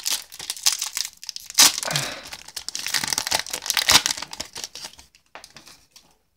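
Foil wrapper of a Yu-Gi-Oh! Legendary Duelists booster pack crinkling and tearing as it is ripped open by hand and the cards are slid out. The crackling dies away about five seconds in.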